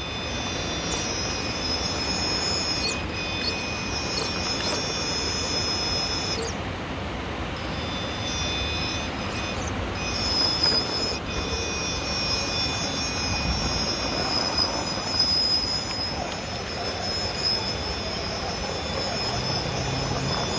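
Electric drive of an RC rock crawler whining in several steady high tones as it crawls over rock, cutting out for about a second twice as the throttle is let off.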